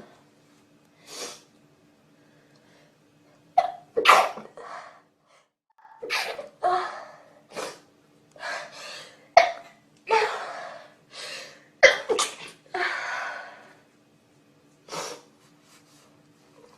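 A long run of short, breathy sneeze-like bursts, irregular and some in quick pairs, about fifteen in all, over a faint steady hum.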